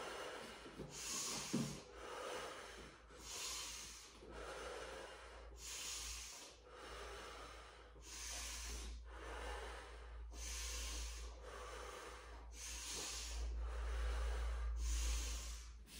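A woman breathing slowly and deeply, in and out, while holding a forearm plank: a rush of air about every one to two seconds, steady throughout.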